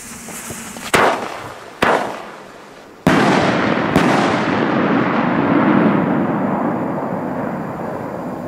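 Klasek 'Bombenrohr DumBum' salute mortar tube firing: two sharp lift-off bangs under a second apart, then two loud salute bursts in the air about a second apart. The first burst is followed by a long rolling echo that slowly dies away.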